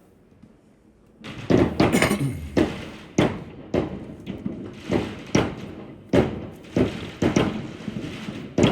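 Consumer fireworks going off: after a quiet first second, a rapid string of bangs follows, about one every half-second, a dozen or so in all.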